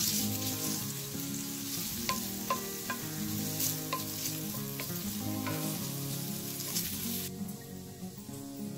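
Diced bacon sizzling as it fries in an enamel skillet while being stirred with a wooden spoon, with a few light clicks. The sizzle cuts off abruptly about seven seconds in, leaving soft background guitar music.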